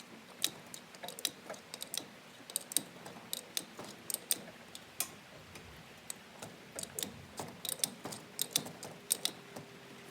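Irregular sharp metallic clicks and taps, a few a second, from a wrench turning a nut to draw a part out of a Compact A overdrive unit.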